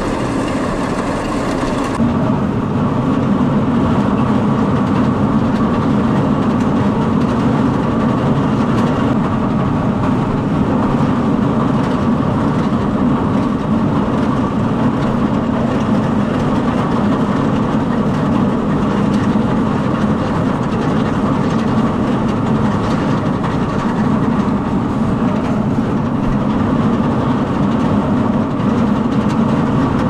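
Hay bale elevator running steadily, its chain conveyor and drive motor giving a continuous mechanical clatter.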